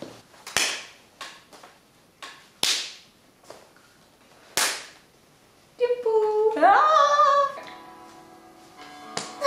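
A series of sharp snaps or claps, irregularly spaced, over the first five seconds. Then a snatch of music begins: a singing voice sliding up in pitch, followed by held chords.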